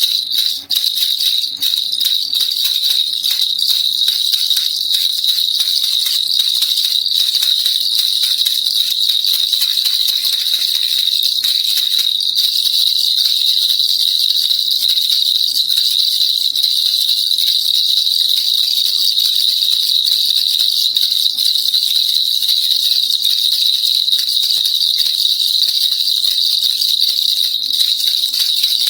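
Baby rattle (kilukilupai) shaken without pause: a dense, fast clicking rattle with a steady bright, high jingling ring.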